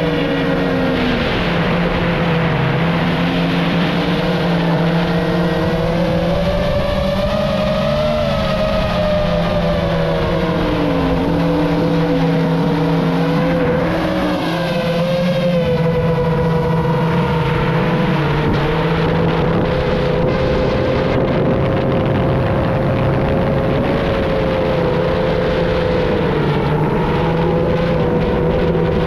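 FPV quadcopter's electric motors whining, their pitch rising and falling as the throttle changes, over a steady rushing noise.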